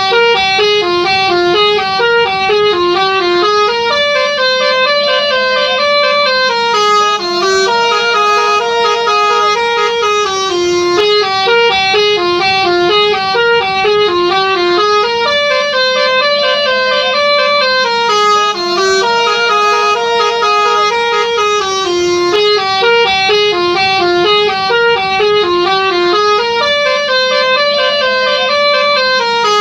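Telolet musical bus horn playing a melody of sharply stepped notes, some held notes wavering in pitch, the tune repeating about every eleven seconds.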